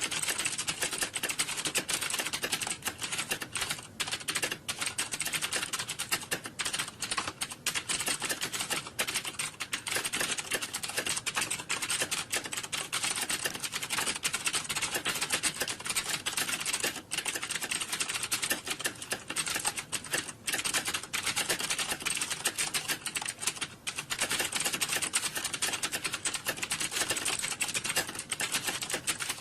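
Computer keyboard typing: a fast, dense, unbroken clatter of keystrokes, with only a few momentary dips.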